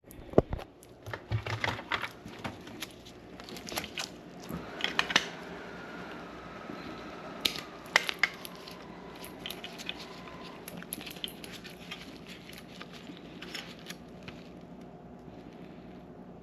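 Irregular clicks, snips and crinkling of hands working on small wires: the leads of a refrigerator air-damper motor being cut and handled.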